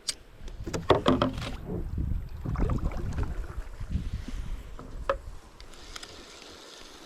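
A kayak being handled, with its hull knocked and bumped: a cluster of knocks about a second in, then rumbling and scraping with a couple more clicks later.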